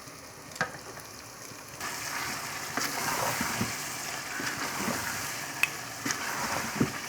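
Food sizzling in hot oil in a cooking pot where onions have been frying to light brown; the sizzle grows louder about two seconds in as more is tipped in and stirred, with a few sharp knocks of a spoon against the pot.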